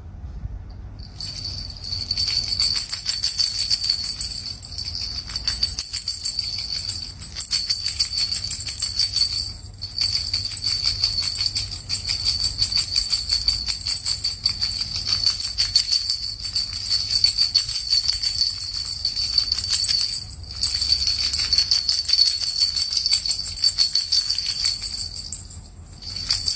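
Small bell shaken continuously in a rapid, bright jingle, with two short breaks about ten and twenty seconds in.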